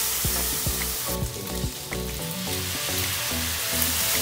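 Diced pork sizzling as it fries in a steel wok, with a wooden spatula scraping and stirring it in the first couple of seconds.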